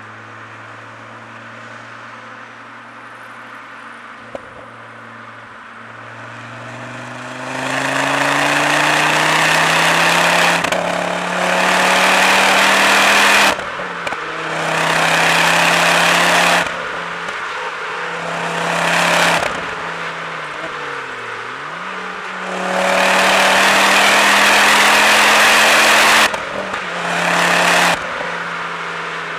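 Ford Focus ST with a Milltek resonated exhaust and a Dreamscience Mod X tune, cruising steadily for the first few seconds. It then makes a run of hard accelerations through the gears: each time the engine note climbs and cuts off sharply at the shift or lift-off. The longest, loudest pull comes near the end.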